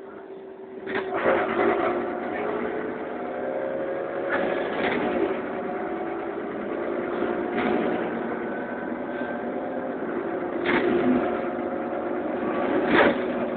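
Cabin sound of a Karosa Citybus 18M articulated city bus under way: a steady engine and driveline hum with several tones, growing louder about a second in. Road noise runs under it, with occasional knocks and rattles from the body.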